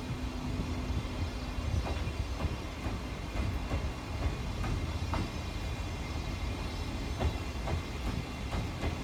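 14-series passenger coaches rolling past as the train pulls out of the station, with a low rumble and irregular clicks of wheels crossing rail joints. A steady hum is heard for the first second and a half.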